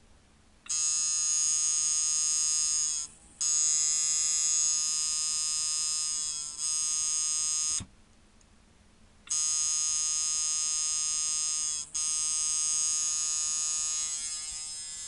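Coil tattoo machine, rebuilt on a Ciferri Fastback frame and set up as a liner, buzzing on a power supply at about 5 volts. It runs in stretches of two to four seconds, stopping briefly between them, and its level drops a little near the end.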